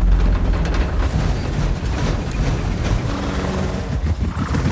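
Helicopter in flight close by: a heavy low rotor beat with engine noise, running steadily.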